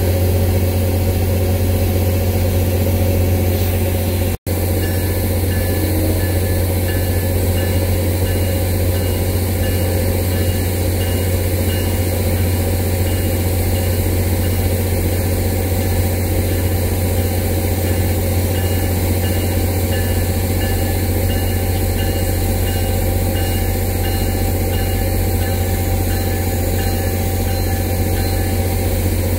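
Diesel engine of NJ Transit GP40PH-2B locomotive 4218 running with a loud, steady low drone. This is the noise the uploader took as the sign that this unit was the cause of the train's breakdown.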